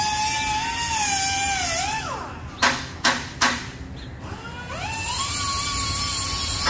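A high-pitched power tool whines, winds down about two seconds in, and after three sharp knocks spins back up to a steady whine.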